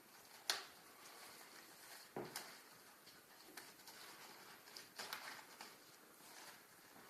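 Faint handling noises of a large book and its packaging being moved: a few scattered taps and knocks, the clearest about half a second in, around two seconds in and about five seconds in.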